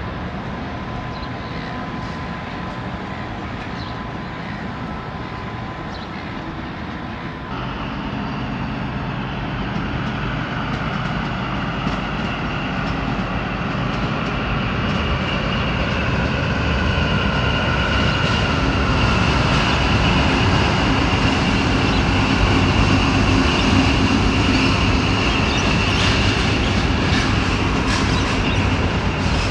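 Passenger train running onto and across a steel truss rail bridge, growing louder from about a quarter of the way in. Its steady low rumble carries high-pitched whining tones over the second half and a run of sharp clicks from the wheels near the end.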